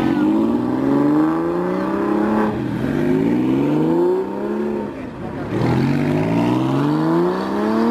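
Porsche 911 flat-six engines accelerating as the cars pull away one after another, the engine note rising three times and dropping back between.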